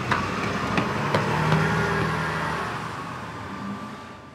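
City bus engine running at the stop and then pulling away, the sound fading out over the last couple of seconds. A few sharp clacks come in the first second and a half.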